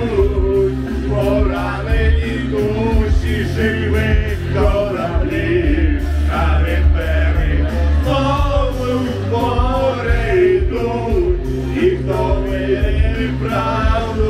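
A man singing karaoke into a handheld microphone over a loud backing track with a strong, steady bass.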